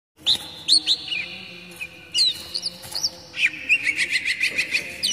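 Oriental magpie-robin (kacer) singing: loud, sharp whistled notes that slide up and down in pitch, then from about three and a half seconds in a fast run of short repeated chirps.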